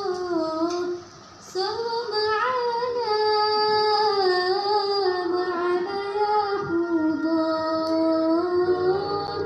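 A woman singing solo and unaccompanied, holding long notes that bend and waver in pitch. She breaks off briefly about a second in, then sings on without pause.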